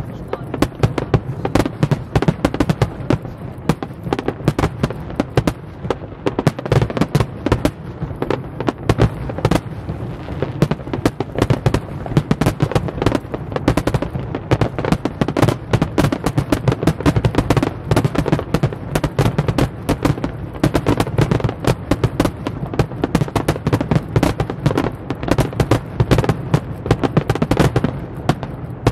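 Aerial fireworks display: a dense, continuous barrage of shell bursts, many bangs a second without a pause.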